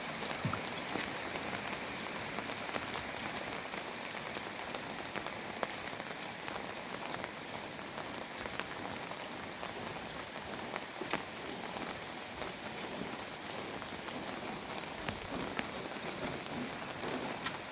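Steady rain falling, an even hiss with many sharp drop ticks scattered throughout.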